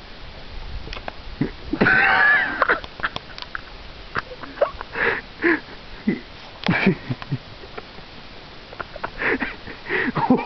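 A person breathing hard in irregular short bursts, with one longer wavering vocal sound about two seconds in.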